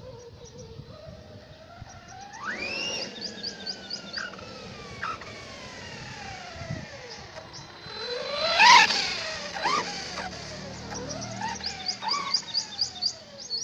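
Redcat Kaiju RC monster truck's brushless electric motor whining, its pitch rising and falling as the throttle is worked. It is loudest and highest about two-thirds of the way in, as the truck passes close.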